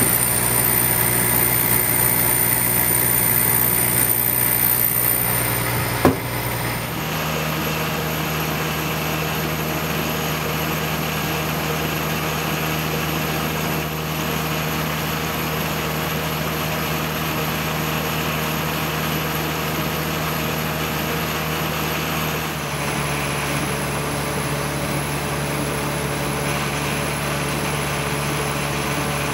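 Laser engraving machine running over a clear block, a steady mechanical hum with a few steady tones. A sharp click comes about six seconds in, and the hum's pitch shifts abruptly about seven seconds in and again past twenty seconds.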